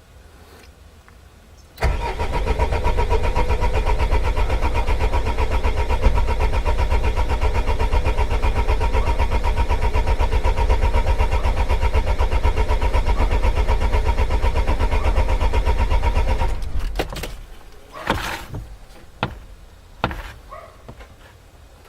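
2001 Vivaro's 1.9 DTi diesel engine cranking on the starter motor for about fifteen seconds with an even, steady pulse, without catching: the engine won't start. The cranking then stops and a few sharp knocks follow.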